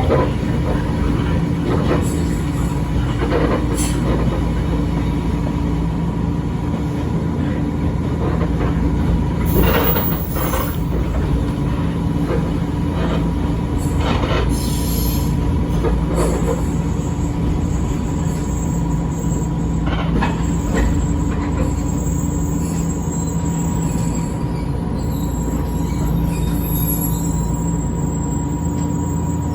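Echizen Railway 5001-series railcar running between stops, heard from inside the car: a steady low rumble and hum, with the wheels knocking over rail joints now and then.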